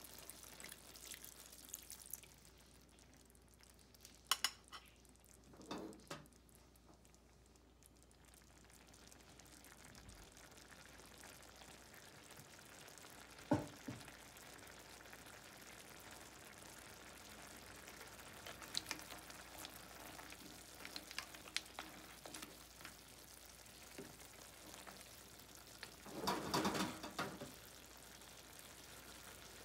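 Clam spaghetti in broth simmering with a faint sizzle in a frying pan, with a few sharp clinks of clam shells and utensil as the pasta is tossed, and a denser clatter near the end. A pour of broth into the pan trails off in the first two seconds.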